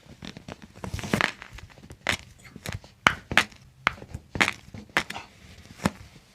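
Toe joints being cracked by a chiropractor's hands: a dozen or so short, sharp pops at irregular intervals as the joints release.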